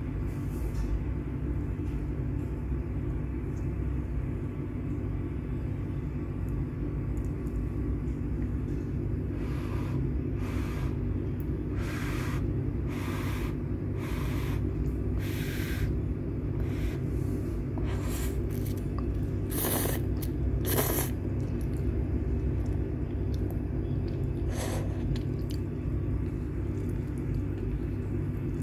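Someone blowing on hot instant noodles on a fork: a run of short puffs of breath about a second apart, then a few more later, over a steady low rumble.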